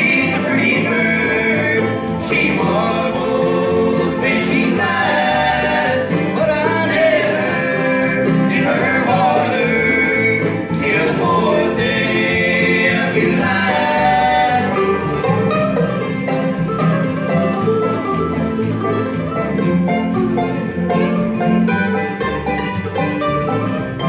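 Live bluegrass band: singing over banjo, acoustic guitars and bass. About fifteen seconds in the singing stops and the instruments carry on, with a mandolin stepping up to take the lead near the end.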